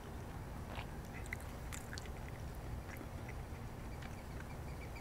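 Close-miked chewing of a taco boat (soft tortilla with beef, sour cream and crisp lettuce): scattered soft mouth clicks and wet chewing over a low steady rumble. Near the end comes a quick run of short high chirps.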